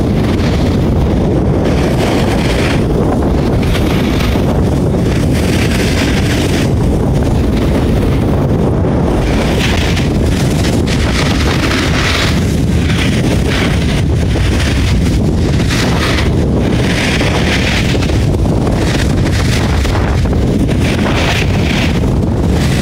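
Wind buffeting the microphone of a phone carried by a skier moving downhill, a loud steady rumble, with a hiss of skis on snow that swells and fades every second or two as the turns go.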